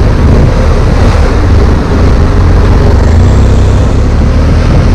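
BMW F800 motorcycle's parallel-twin engine running at a steady cruise while riding, with a constant low rumble and no change in revs.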